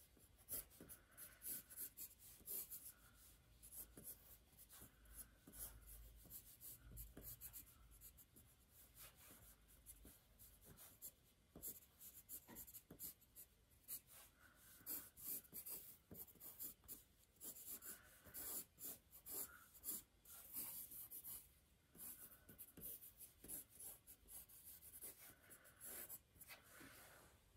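Faint scratching of a pen on paper in many quick, short strokes, with brief pauses between runs of strokes.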